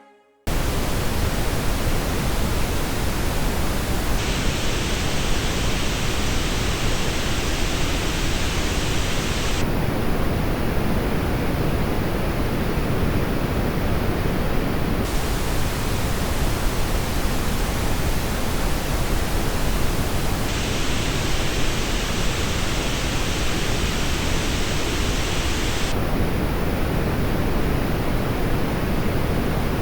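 Pink noise test signal played through true-wireless earbuds, a steady hiss starting about half a second in. Its treble balance steps up and down every five or six seconds, as playback switches between the two earbuds under test, the Apple AirPods Pro 2 and the Sony WF-1000XM4.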